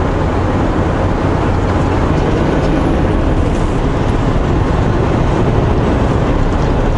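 Steady engine drone and road noise inside a semi-truck's cab, cruising downhill at about 100 km/h in a lower gear.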